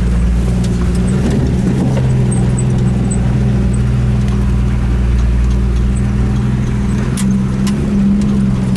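A 1989 Jeep Wrangler YJ's engine running at steady revs as it climbs an off-road trail, with a couple of sharp clicks or rattles about seven seconds in.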